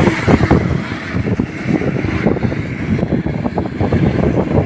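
Wind buffeting the phone's microphone in gusts, a loud, uneven low rumble during a storm.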